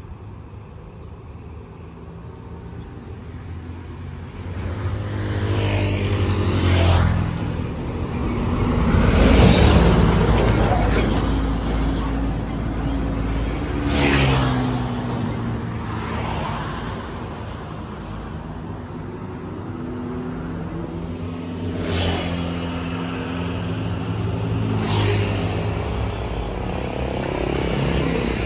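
Road traffic passing close by, motorcycles among it: a string of vehicles go past one after another, each swelling and fading with a falling pitch. The loudest passes about ten seconds in, and others come about 14, 22 and 25 seconds in.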